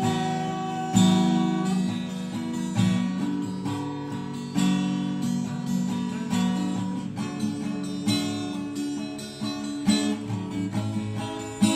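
Acoustic guitar strumming chords, with a fresh strum every second or two and no singing.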